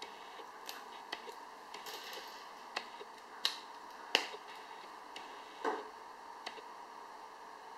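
Light clicks and taps of hard plastic parts being handled and fitted together: a clear resin 3D-printed panel joined to an orange LEGO Technic piece. A handful of sharp clicks, the loudest about four seconds in, then a brief rustle near six seconds.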